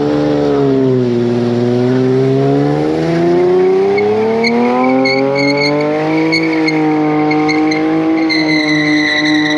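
Car engine held at high revs for the whole stretch, its pitch sagging, then climbing and holding steady. Tyres squeal in pulses from about four seconds in.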